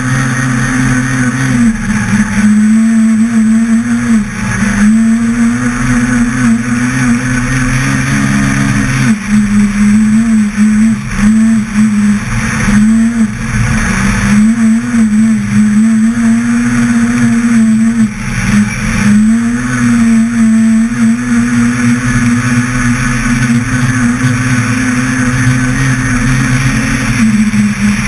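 Citroën C2 R2 rally car's 1.6-litre four-cylinder engine driven hard on a snowy road. Its note climbs, holds and drops again every few seconds as the driver shifts gears and lifts for corners, over a steady rushing noise.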